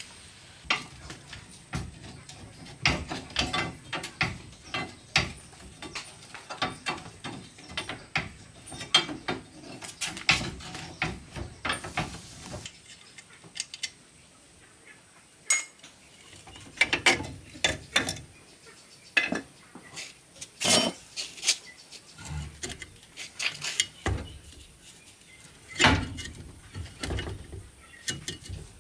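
Hand tools working on a pickup truck's front-wheel-drive parts: irregular metallic clicks and clanks, some in quick runs, with short pauses between.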